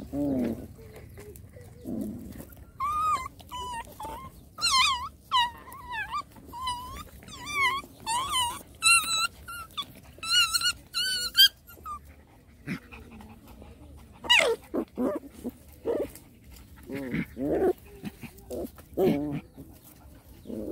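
Puppies play-fighting and vocalizing: a long run of high, wavering whines and yelps in the middle, with lower-pitched growling calls near the start and again in the last several seconds.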